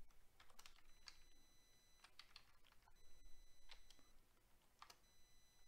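Faint typing on a computer keyboard: a scattering of quick key clicks, as a view name is typed in.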